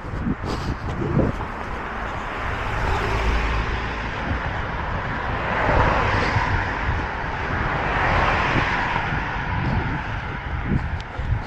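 Road traffic: cars passing close by, the tyre and engine noise swelling twice in the middle, over a low wind rumble on the microphone. A runner's footfalls thud near the start and the end.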